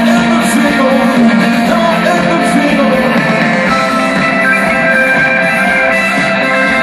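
Live rock band playing through a concert PA, with electric and acoustic guitars, drums and singing, loud and steady as recorded from the crowd.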